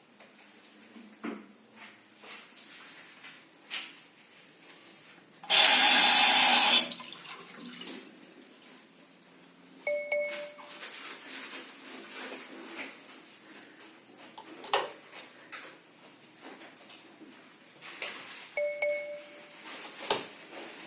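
Scattered clicks and knocks, a loud hiss like a brief gush of water about five and a half seconds in, and two short bell-like dings, about ten and nineteen seconds in.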